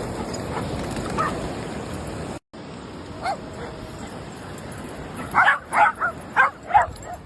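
Steady surf and wind noise that cuts off abruptly about two and a half seconds in, then a dog giving a quick run of about six high-pitched yips near the end.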